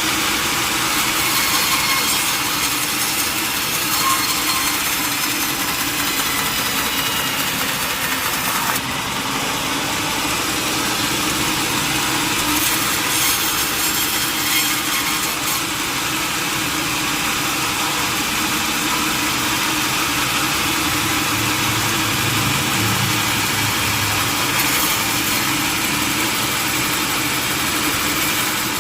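Sawmill machinery running steadily: an engine drone with saw noise over it. The sound shifts abruptly about nine seconds in.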